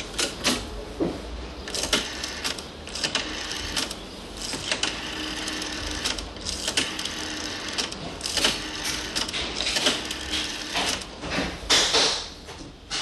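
Token payphone with a rotary dial in use: a telephone token dropping into the coin slot, then a number being dialled, the dial clicking as it is turned and as it runs back. The clicks come in irregular clusters through the whole stretch.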